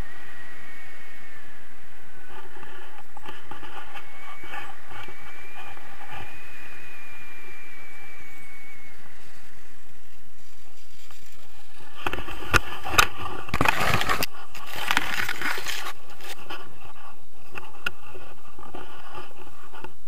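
Wind rushing over the camera microphone of a tandem paraglider coming in to land, with a thin whistling tone through the first half. About twelve seconds in comes a burst of knocks and scraping as the harness and feet touch down on the grass.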